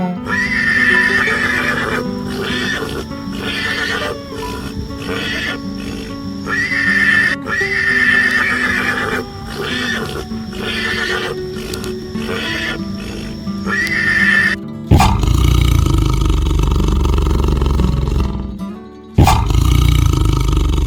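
A donkey braying in repeated long, rasping calls. About fifteen seconds in, a big cat takes over with loud, deep roars, broken by a short pause about four seconds later.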